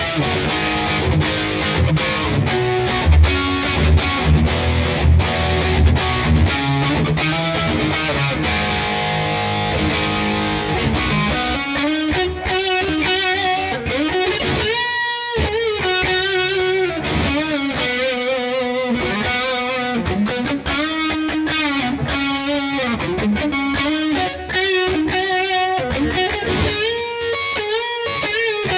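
Gibson SG Standard electric guitar on its stock pickups, played with a distorted tone: low chugging riffs for about the first ten seconds, then a single-note lead line with string bends and wide vibrato.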